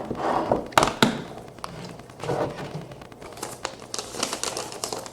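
Handling noises as the plastic case of a Glock 17 pistol is opened: two sharp clicks about a second in, then crinkling and light tapping.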